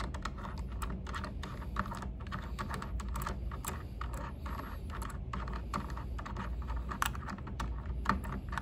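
Irregular light metal clicks and taps as the knurled rotary chuck is turned by hand and unscrewed from the shaft of a Doble TR3190 linear/rotary transducer.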